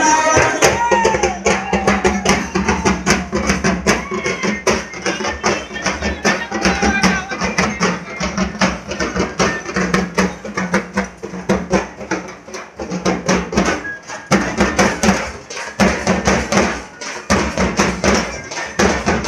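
Large double-headed drums of a street procession band beaten with sticks in a fast, even rhythm, with a few short breaks in the second half.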